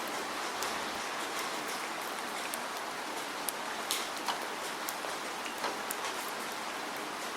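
Steady rain with individual drops pattering and ticking on a surface, a few louder drips standing out now and then.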